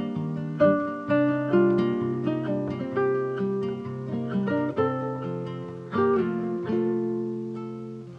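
Background music: acoustic guitar plucking and strumming, each note starting sharply and fading.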